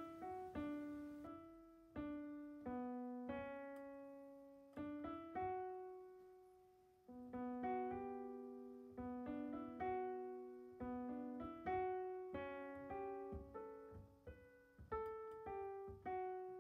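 Background music: solo piano playing a slow melody of single struck notes, each ringing and fading before the next.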